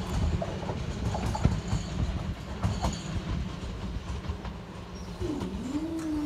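A Class 377 Electrostar electric train running away over the track, its wheels clicking over rail joints and points as its rumble slowly fades. Near the end a steady mechanical hum starts as the level-crossing barriers begin to lift.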